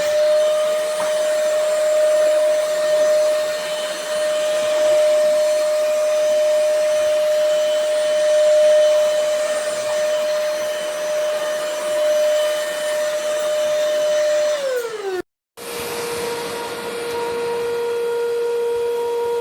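A VersLife S6 Pro cordless stick vacuum running with a steady high whine over a rush of air. About fifteen seconds in, the whine falls in pitch and cuts out for a moment, then the vacuum runs on again at a lower, steady pitch.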